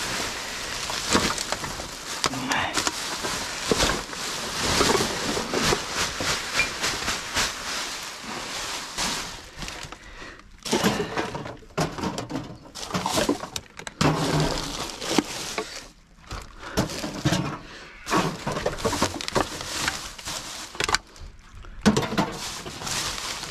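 Plastic rubbish bags rustling and crinkling as gloved hands pull them about and rummage through a dumpster, with scattered knocks and clatter of containers, broken by a few short quieter pauses.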